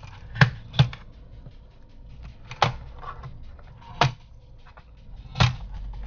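Plastic retaining clips of a Dell Inspiron 15 3000 laptop's bottom cover snapping loose as the cover is pried off by hand: five sharp clicks, two close together near the start, then the rest spread a second or so apart.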